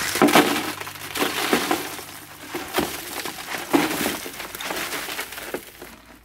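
Broken brick pieces and then crushed stone gravel poured from a bucket into a plastic jerry can, a dense clatter and rattle of stones hitting the hollow plastic and each other. The pouring tails off and stops near the end.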